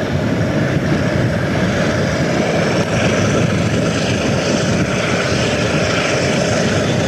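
Steady rush of wind buffeting the microphone on the roof of a moving train, mixed with the train's running rumble.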